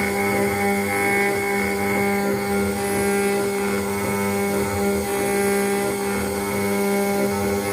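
CNC router spindle running at a steady speed with a constant whine, a 1 mm ball-nose cutter engraving brass, with rough cutting noise beneath the tone.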